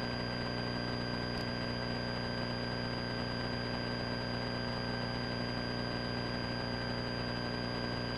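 Single-engine Cessna Skyhawk's piston engine and propeller droning steadily in flight, with a thin steady high whine above it.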